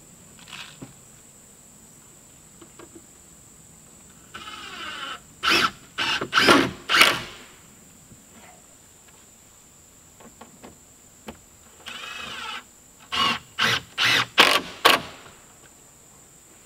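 Cordless power driver driving screws into a wooden sheathing board, twice: each time a short steady whine of the motor, then four or five short loud bursts as the screw is run home.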